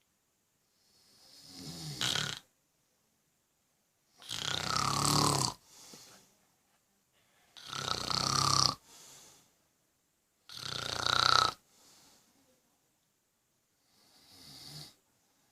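An elderly man snoring loudly in his sleep: five snores about three seconds apart, each swelling and then cutting off, the middle three loudest.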